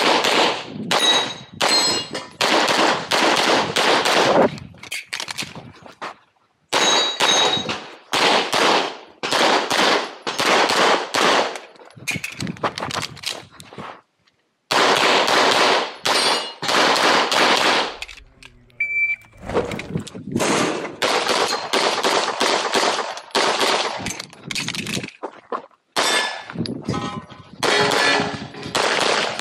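Rapid strings of 9mm pistol shots from a 1911 firing a practical-shooting course, with pauses between strings. Some shots are followed by short metallic rings from steel targets being hit.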